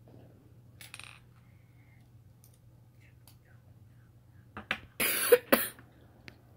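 A few light clicks of plastic Lego pieces, then a short burst of coughing about five seconds in, the loudest sound here.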